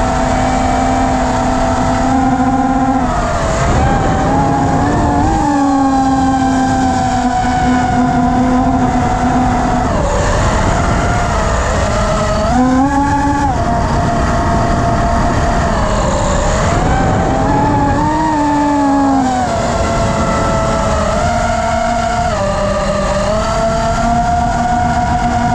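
FPV quadcopter's motors and propellers whining loudly, the pitch sliding up and down every few seconds as the throttle changes, over a rushing noise of wind.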